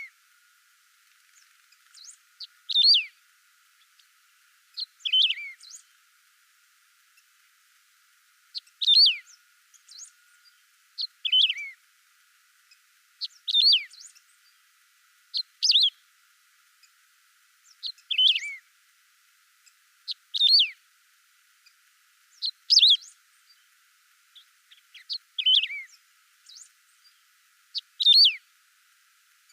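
Canário-do-campo (wedge-tailed grass-finch) singing: a short, high, downward-sweeping phrase repeated about every two to three seconds, around eleven times, with a few faint softer notes in between.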